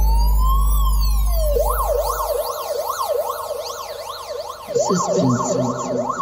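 Synthesized siren sounds in a bass-heavy track played through an aftermarket car audio system, heard inside the car's cabin: a slow rising wail over a deep steady bass note. The bass drops out about two and a half seconds in, then the wail turns to quick up-and-down yelp sweeps, about two and a half a second.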